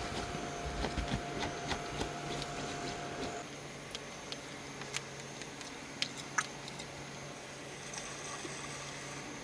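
Scattered small clicks and rustles of handling, close by in a small space, over a faint steady hum. A steady high tone stops about three and a half seconds in. After that the clicks thin out, with two sharper ticks a little past the middle.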